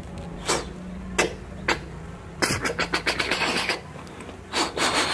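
Plastic toy guns being handled and worked: a few separate clicks, then a fast run of clicks lasting about a second, and a short hissing burst near the end.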